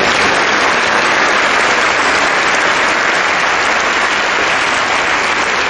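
Tennis crowd applauding a won point: a dense, steady patter of clapping in an indoor arena.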